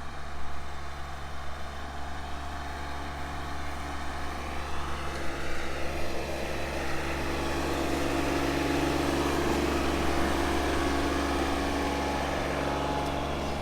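Engine of a machine backfilling a cable trench, running steadily with a deep hum and a stack of even engine tones, growing a little louder partway through as it works.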